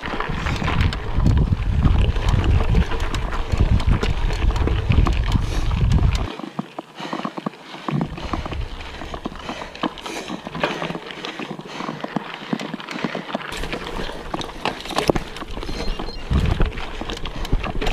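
Canyon Grail gravel bike riding over a rough, rocky dirt trail: tyres crunching on gravel and the rigid bike rattling and knocking over rocks, with wind rumbling on the microphone that drops out for a moment about six seconds in.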